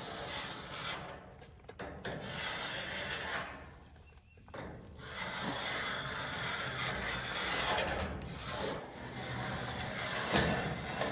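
Rough scraping and rubbing in several stretches of one to three seconds each, broken by short pauses, with a sharp knock near the end.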